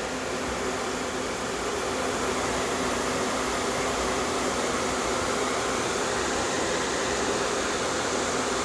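Homemade R22 air-conditioning unit running steadily: the refrigeration compressor and the condenser water pump make an even hum and rush. The system is on its first start-up and not yet at a full refrigerant charge.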